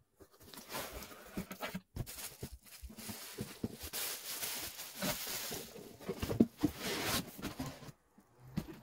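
Cardboard shipping box being opened and unpacked by hand: plastic bubble wrap rustling and crinkling, with cardboard flaps scraping and knocking. It goes quiet about eight seconds in, apart from one brief knock.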